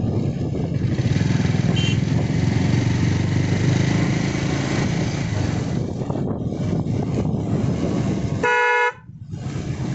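Motorcycle riding along a mountain road, its engine and wind noise steady throughout. A horn gives one short beep near the end, with a brief faint high toot about two seconds in.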